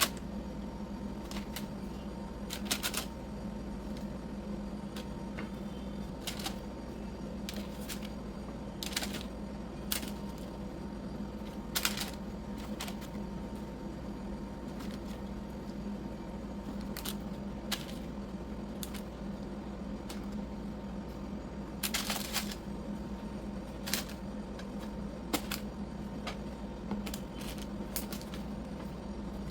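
Irregular short clicks and taps, some in quick clusters, from hands handling things on a kitchen work surface, over a steady low hum.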